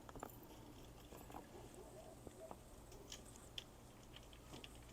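Faint, scattered small clicks and clinks of an LED shop light's thin metal hanging chains being untangled by hand.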